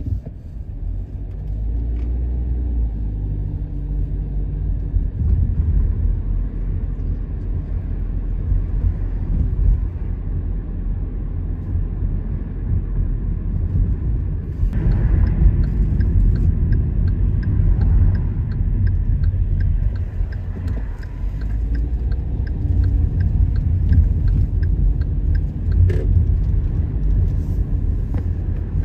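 Road and engine rumble heard inside a moving car's cabin: a steady low rumble that swells and eases as the car drives. Faint, regular light ticks come in over the second half.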